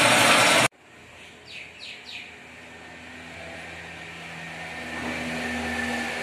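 A loud, even rushing noise cuts off abruptly about half a second in. Then comes quieter outdoor background: a few quick falling bird chirps, and a vehicle engine hum that slowly grows louder.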